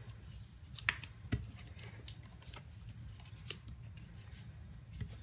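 Hands rubbing a strip of tape release paper over a die-cut paper frame to press it down onto double-sided adhesive: soft paper rustling with scattered light clicks, a couple of sharper ones in the first second and a half.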